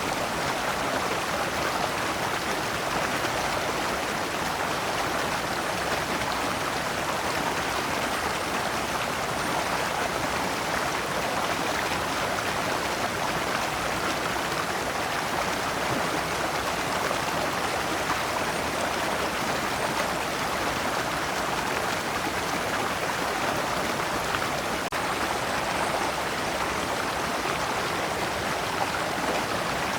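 Shallow rocky stream running steadily over stones in small cascades, an even rushing and splashing of water.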